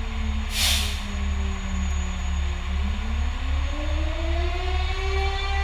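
Fire truck siren heard inside the cab. Its pitch slides slowly down, then winds back up over a couple of seconds and holds, over the pulsing low rumble of the truck's idling diesel engine. A short hiss of air comes about half a second in.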